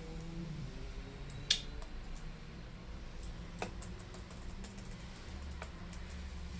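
Laptop keyboard keys and keycaps clicking under the fingers, with scattered light ticks and one sharper click about a second and a half in.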